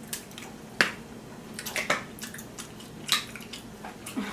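Cooked crab and crawfish shells being cracked and pulled apart by hand: a run of sharp snaps and clicks with wet squishing, the loudest snap about a second in.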